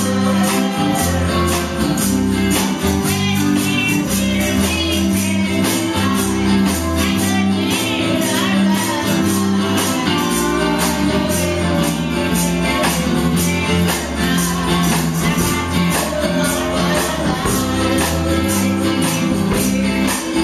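An elderly woman singing a worship song through a microphone and PA over a live band, with bass notes and percussion keeping a steady beat.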